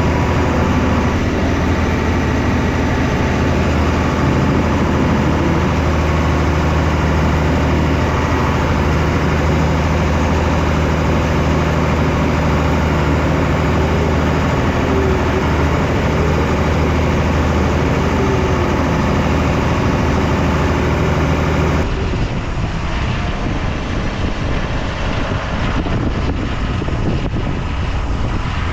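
Tractor engine running steadily while pulling a plough. Near the end the sound changes abruptly to a rougher, gustier noise, with wind on the microphone.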